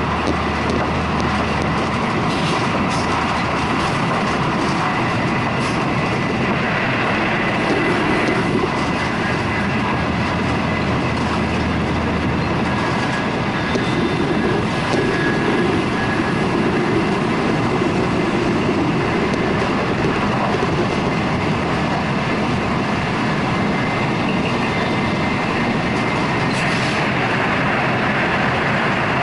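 Shinkansen bullet train running at speed, heard from inside a passenger car: a steady, even rush of wheel and running noise with a faint high tone over it.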